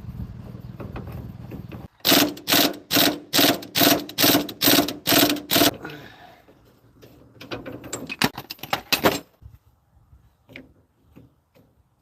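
Hand ratchet wrench working a fastener: a regular run of about ten loud clicking strokes, roughly three a second, starting two seconds in, then a quicker burst of ratcheting clicks and a few scattered taps. A steady low hum sits under the first two seconds.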